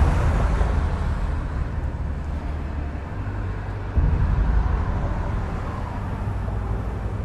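Low, steady rumble of vehicle engines and traffic, stepping louder about four seconds in.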